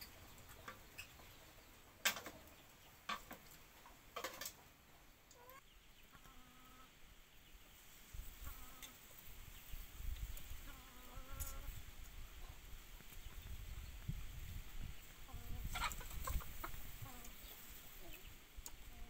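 Chicken clucking in short calls, several times over, with a few sharp clicks in between.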